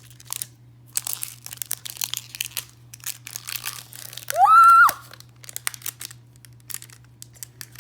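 Plastic wrapping crinkling and tearing in irregular crackles as a toy container is unwrapped. About halfway through comes one short, loud, high-pitched squeal that rises and then holds.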